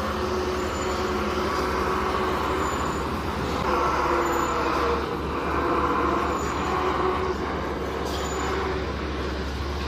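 Empty multi-axle box-girder carrier driving past, its engine running steadily as its many large tyres roll over the gravel road. It grows louder about four to six seconds in, as it passes closest.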